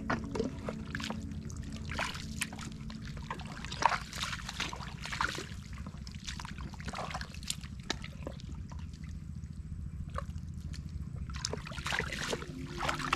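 Rubber boots squelching and sucking in wet mud as a person wades, with irregular wet slurps, pops and small splashes of muddy water. One sharper pop comes about four seconds in.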